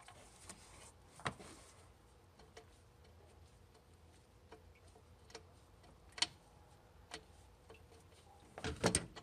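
Scattered sharp clicks and light knocks of a hand working a stiff fastener loose among hoses and panels, with a louder cluster of clicks near the end as it comes free.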